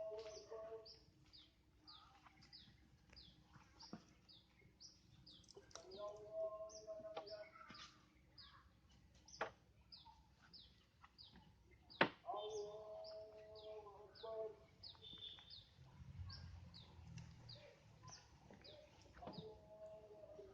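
A bird chirping over and over, short high falling notes about two to three a second, faint. Every six seconds or so a lower, drawn-out call comes in for a second or two, and there are a couple of sharp knocks.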